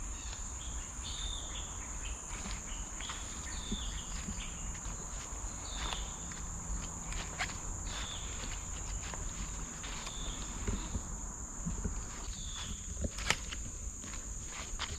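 Steady high-pitched drone of forest insects, with a short chirp repeating every second or two and scattered clicks like footsteps on the trail.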